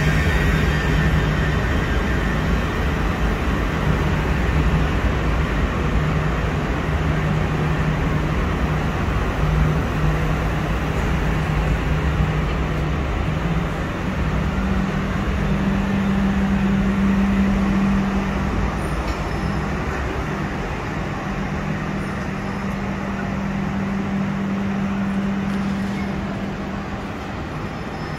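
c2c Class 357 Electrostar electric multiple unit pulling out of the platform: a continuous rumble of wheels and running gear with a steady low electrical hum, and a second, slightly higher hum joining about halfway through.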